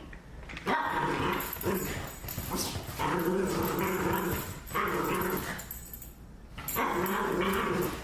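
A dog vocalizing in three long, drawn-out bouts of growly barking.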